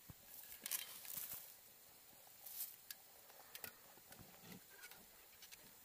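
Faint, intermittent scrapes and crunches of a spade digging into soil, with a cluster of scrapes about a second in and another about two and a half seconds in.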